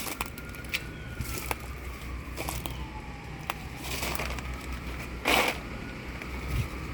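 Crackling and crunching of broken branches and leaf debris under foot and hand, with scattered sharp snaps and a louder crunch about five seconds in. A faint siren rises and falls slowly in the distance.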